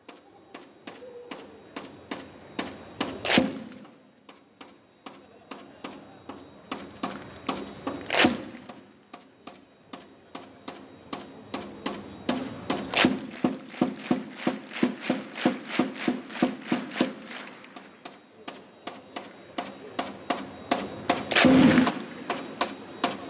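Large crowd of football ultras clapping in unison, with crowd voices chanting underneath. The claps come about two a second and quicken in the middle. Louder accents come every few seconds, and the loudest burst is near the end.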